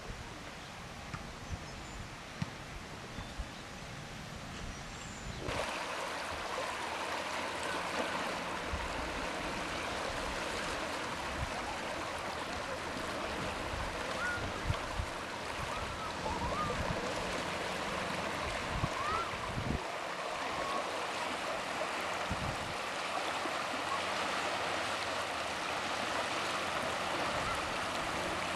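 Small waves lapping and washing among the stones of a rocky lakeshore: a steady splashing hiss. It comes in suddenly about five seconds in, after a quieter low rumble.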